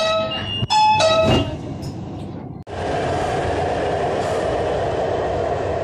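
A few short electronic chime tones, then an Orange Line metro train running steadily along the station platform, a continuous even rumble.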